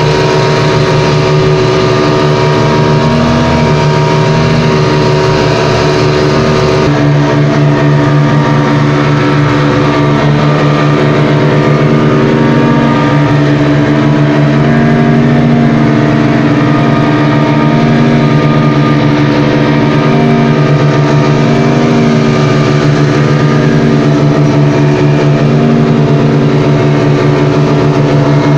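Speedboat outboard motor running steadily at speed, a loud even drone with a hiss over it. The hiss turns duller about seven seconds in.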